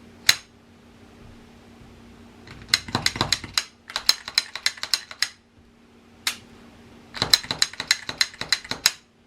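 Sharp clicks from a Glock 17 Gen 5 pistol being handled as its slide goes back onto the frame: a single click just after the start, then three runs of rapid clicking lasting one to two seconds each, with one lone click between the second and third runs.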